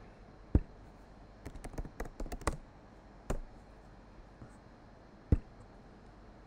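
Typing on a computer keyboard: a sharp click about half a second in, a quick run of keystrokes around two seconds in, then single clicks near three and five seconds.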